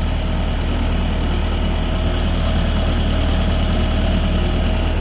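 Tractor engine running steadily at low speed while being ridden, a constant low hum.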